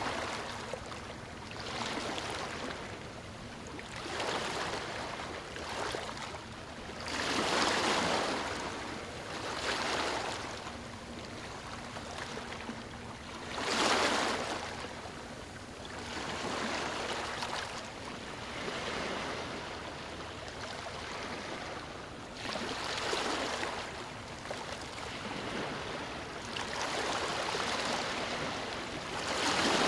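Ocean waves breaking on a beach, one surge of surf every few seconds over a steady wash, with the biggest breakers about 8 and 14 seconds in and again near the end.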